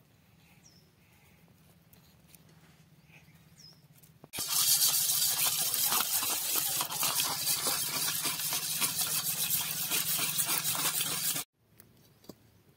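Metal spoon beating raw eggs in a stainless steel bowl: a loud, fast, continuous clatter that starts about four seconds in and stops abruptly about seven seconds later. Faint bird chirps before it.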